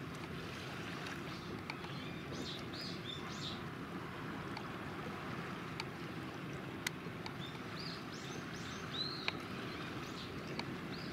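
Shipyard waterfront ambience: a steady low rumble with a few sharp knocks from the yard, about two seconds in and again near the end. Short bird chirps come in two clusters.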